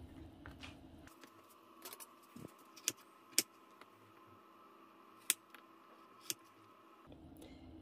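Kitchen knife cutting artichoke hearts on a wooden cutting board: several sharp knocks of the blade against the board, spaced irregularly, the loudest about three and a half and five seconds in.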